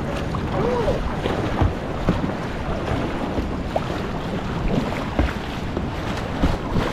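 Moving current of a concrete whitewater channel rushing around a kayak, with scattered paddle splashes and wind buffeting the microphone.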